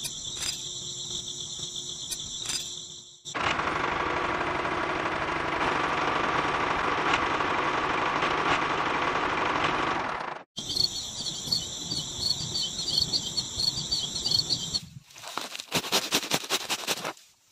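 Insects chirping, then a DIY mini tractor's small electric motor running with a steady whine for about seven seconds, then insects chirping again. Near the end comes a quick run of crisp snips as a small sickle cuts rice seedlings.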